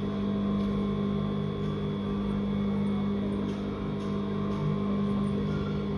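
Electric sewing machine running at a steady speed, its motor giving an even hum while it stitches.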